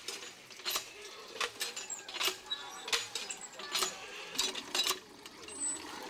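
Hand pump on a tube well being worked by hand: its handle clanks and squeaks with each stroke, about once every three-quarters of a second.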